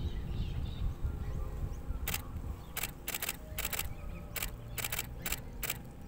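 Canon DSLR shutter firing from about two seconds in, in single shots and quick bursts of two or three, about a dozen clicks in all, over a steady low rumble.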